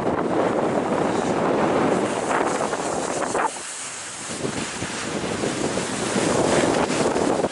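Wind rushing over a moving microphone on a ski slope, mixed with the hiss of snow sliding under board and ski edges. The noise drops abruptly about three and a half seconds in, then builds back up.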